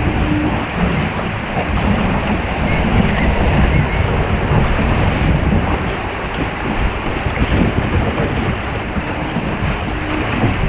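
Wind buffeting a deck-mounted camera's microphone over the rushing and splashing of water along a Flying 11 sailing dinghy's hull under way, a steady loud noise throughout.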